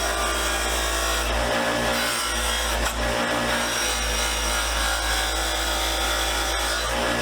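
Power-driven wire wheel running steadily against a metal socket-set box, stripping off old flaking paint.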